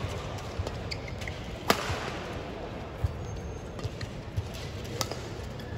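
Badminton rally: sharp cracks of rackets striking the shuttlecock, three clear hits about a second and a half apart, the loudest about a second and a half in, over a low arena murmur.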